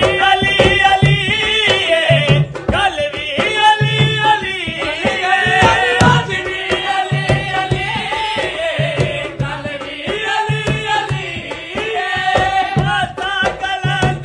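Devotional qasida praising Ali: a solo voice singing a wavering, ornamented melody over a steady drum accompaniment.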